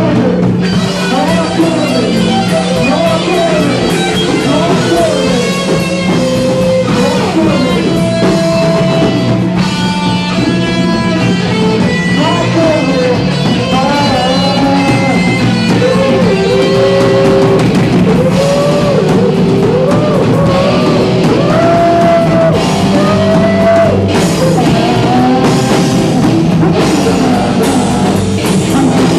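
Live band playing loud, noisy rock: a guitar with sliding, bending notes over a steady low drone and a drum kit.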